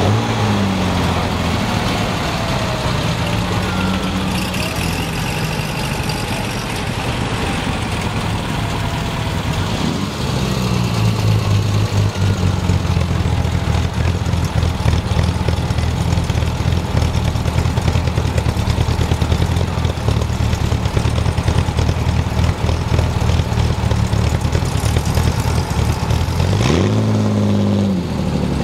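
Triumph TR6's straight-six engine idling with a steady low note, its revs rising and falling a few times. Near the end it revs up sharply and drops back as the car pulls away.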